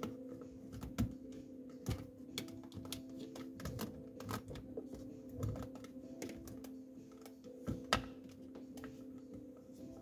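Irregular plastic clicks and knocks from a clip-on digital mirror dash cam being handled and pressed onto a car's rear-view mirror, with a sharper knock about a second in and another near the end. A steady low hum runs underneath.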